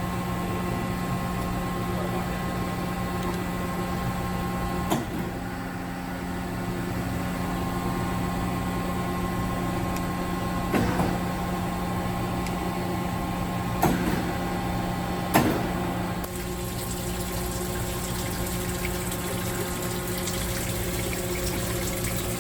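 Mitsubishi GC-20 CNC gear hobbing machine running: a steady machine hum under a continuous wash of noise, with four short sharp knocks in the middle.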